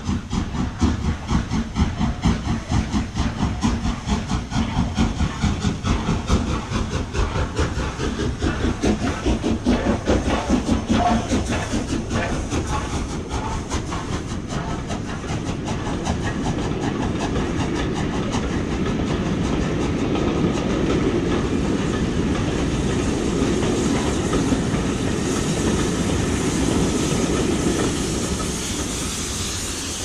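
Steam train running, with a fast rhythmic beat of several pulses a second that smooths into a steady rush about halfway through, dropping a little in level near the end.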